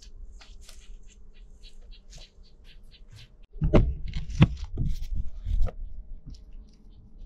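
Rustling, scraping and small clicks of hands working at the base of a solar panel among dry leaves and soil, with a louder flurry of scrapes and knocks a little past the middle.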